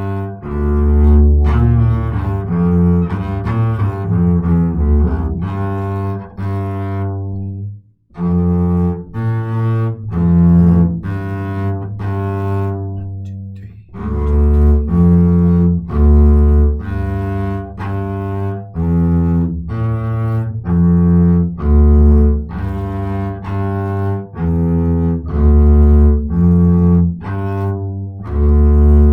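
Double bass played with the bow: a slow bass line of sustained notes, one after another, with a short break about eight seconds in.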